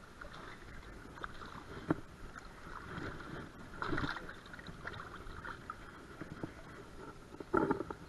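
Hooked smallmouth bass splashing and thrashing at the water's surface about four seconds in, over steady lapping creek water, with a louder burst of splashing near the end as the fish is landed by hand.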